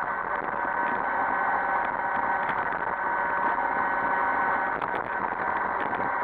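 iRobot Roomba 560 robot vacuum running: a steady motor hum with a couple of constant whining tones from its vacuum motor and brushes, and a few faint clicks about five seconds in.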